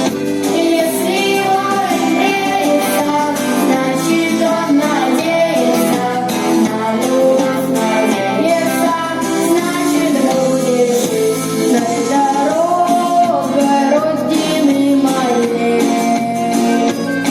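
A vocal group singing a song over instrumental accompaniment, with female voices carrying the melody.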